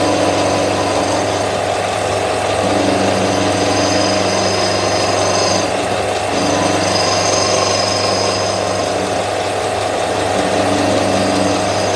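Ferm disc sander running steadily while the edge of a round pine board is sanded against its disc. The sanding sound briefly changes about six seconds in, as the board's contact with the disc shifts.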